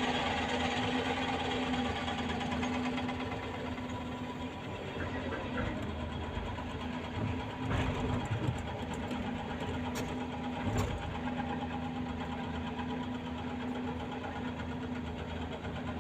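An excavator's diesel engine running under load with the rapid, steady hammering of a hydraulic breaker, and a few sharper metallic knocks partway through.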